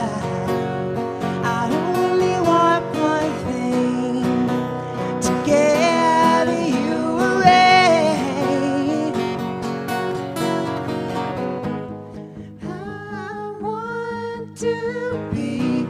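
Live acoustic song: two acoustic guitars strummed under a man's lead singing. The playing thins out and gets quieter about twelve seconds in, leaving held sung notes over lighter guitar.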